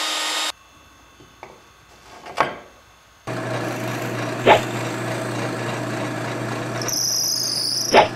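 A router on a router table runs with a steady whine and cuts off about half a second in. After a quieter stretch with a few knocks, a drill press starts up about three seconds in and runs with a steady hum as its bit bores into a pine 2x4, with a sharp knock twice.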